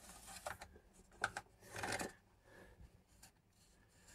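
Faint handling sounds of a blue plastic flush-mount electrical box being fitted and adjusted by hand: short scrapes and rubs, a sharp click about a second in, and a longer scrape near the middle.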